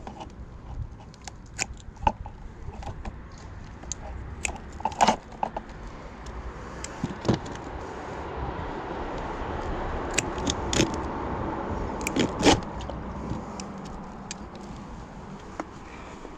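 Sharp metallic clinks, knocks and jangles of scrap being handled, a few of them loud. A passing car swells and fades about midway through.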